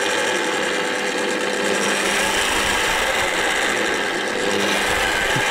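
Parkside benchtop drill press switched on and running unloaded: a steady motor whine with spindle noise, not drilling anything.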